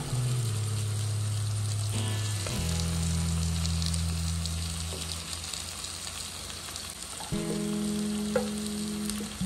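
Beef liver sizzling as it fries in oil in a pan, with stirring and a sharp tick from the pan about eight seconds in. Under it runs background music of long held low notes that change pitch every few seconds.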